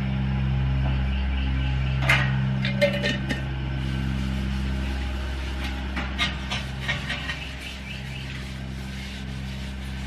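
Cloth wiping and rubbing over a bare metal helmet shell as it is handled and turned, with scattered small clicks and knocks about two seconds in and again around six to seven seconds in, over a steady low hum.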